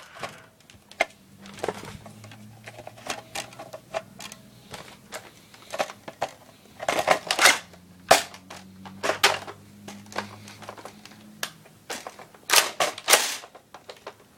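Plastic clicks and knocks of a magazine being pushed and worked into a Nerf Stampede blaster that will not seat it, irregular, with louder clusters of clatter about seven seconds in and again near the end.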